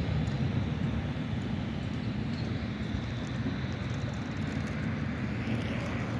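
Tram running slowly on its rails: a steady low rumble.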